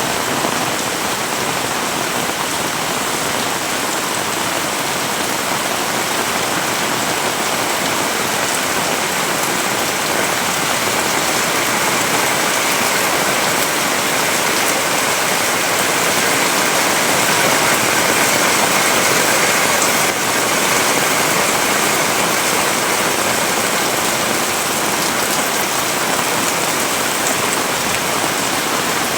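Heavy rain pouring down steadily, a dense even hiss that grows a little louder through the middle and eases back.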